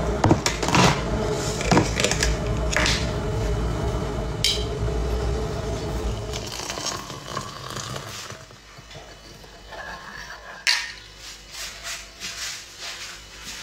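Ceramic mugs and a glass coffee jar clinking and knocking on a kitchen table, several sharp clicks in the first few seconds, over a steady low rumble that fades out by about eight seconds in. A single louder knock comes about ten seconds in, followed by lighter tapping.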